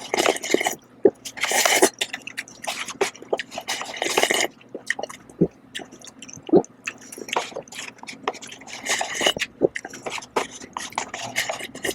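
Close-miked slurping and chewing of instant noodles in broth: several short hissy slurps, the first at the very start, with wet mouth clicks and smacks between them.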